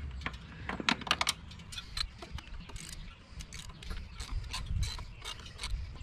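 Socket ratchet clicking in short strokes, loosening a mounting bolt of a motorcycle's rectifier-regulator.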